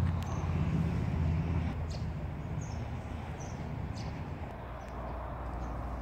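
Outdoor ambience: a low rumble that eases after about two seconds, with a few short, faint high chirps.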